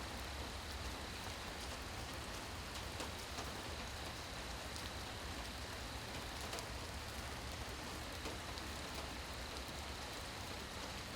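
Steady rain falling, with scattered individual drops ticking on hard surfaces. A faint steady high-pitched tone runs underneath.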